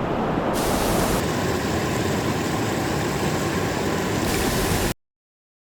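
Steady rushing of river water, cutting off abruptly to silence about five seconds in.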